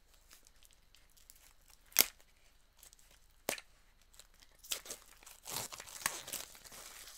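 Plastic packaging crinkling and tearing as a Funko Soda vinyl figure is unwrapped from its can, with a sharp click about two seconds in and another about a second and a half later. The crinkling is steady and busiest in the last few seconds.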